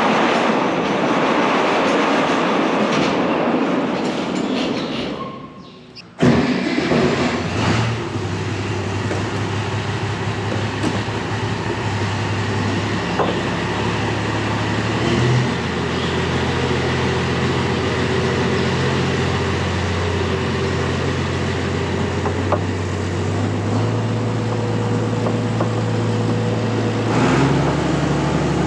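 Heavy diesel machinery running steadily, most likely a combine harvester, with a deep hum that shifts in pitch every few seconds as the load changes. In the first few seconds a rushing noise fades away, and then the machine sound cuts in suddenly.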